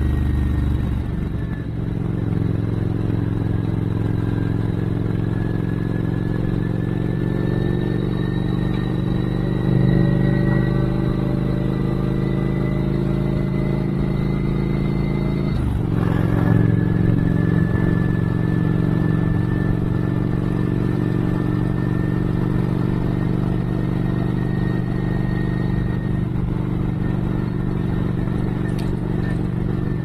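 Cruiser motorcycle engine running steadily at road speed, heard from the rider's seat with wind and road noise. The engine note climbs slowly, then dips briefly about halfway through before settling back.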